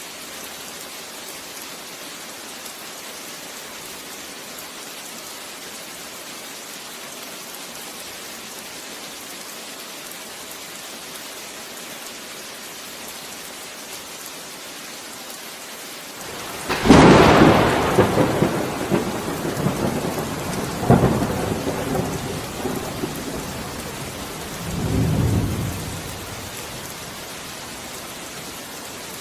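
Steady rain falling, with a sharp thunderclap about halfway through that rolls on as rumbling with two more swells before dying away.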